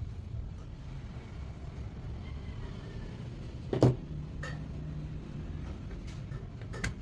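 Handling noises from taking apart the water dispenser: one sharp knock about four seconds in, then a few small clicks near the end, over a steady low rumble.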